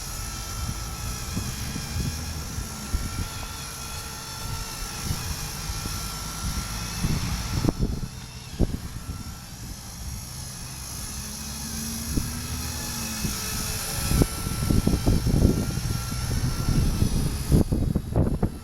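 Blade mCP X micro RC helicopter flying, its motors and rotors giving a steady high whine, with strong wind buffeting the microphone in gusts that are heaviest in the last few seconds.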